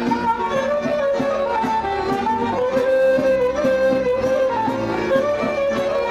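Romanian folk orchestra playing a lively instrumental tune live on clarinet, violins, accordion and double bass. The melody moves along over a quick, steady beat.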